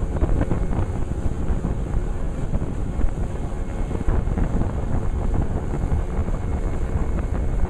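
Motorboat under way: a steady rush of engine and water noise, with heavy wind buffeting the microphone.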